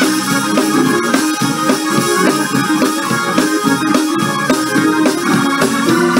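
Instrumental passage of a gospel anthem: sustained keyboard chords with no voices. Singing resumes just after it.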